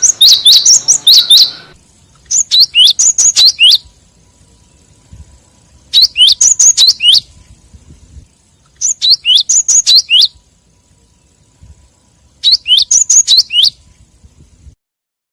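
Gelatik batu (cinereous tit) calls from a bird-lure recording: bursts of rapid, sharp, high chirps, each note sweeping downward, repeated about five times with pauses of a second or two between them.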